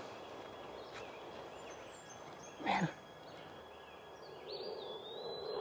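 Faint outdoor ambience with one brief falling sound about two and a half seconds in. A high tone and a low steady drone come in near the end.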